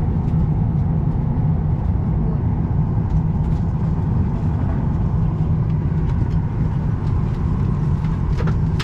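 Steady low rumble of a Boeing 737-800's cabin, with faint passenger chatter and a few small clicks.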